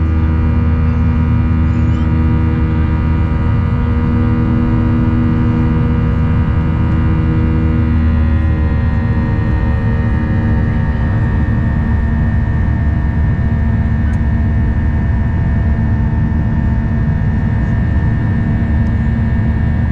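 Cabin noise of a Boeing 737-800 climbing after takeoff: a loud, steady drone from its CFM56 turbofan engines with several humming tones, some of which shift in pitch about eight seconds in.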